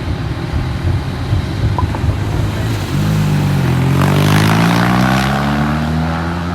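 A motor engine runs with a low rumble. About three seconds in, a louder engine note sets in and its pitch falls slightly, with a hiss building briefly around the middle.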